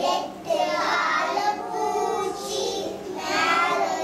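A group of young children singing together in unison, an action song performed in chorus.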